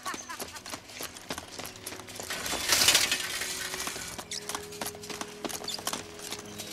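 Metal leg braces clinking and clattering with running footsteps, with a loud crashing noise about three seconds in. Held music tones come in during the second half.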